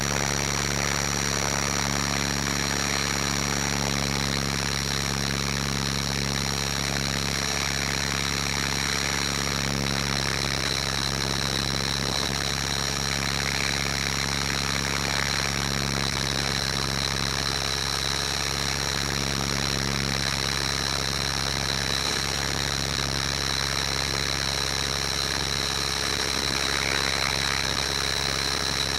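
Electric Align T-Rex 500 RC helicopter in flight, heard from its onboard camera. A steady high whine from the motor and drivetrain runs over the low beat of the rotors, holding constant as it descends under power.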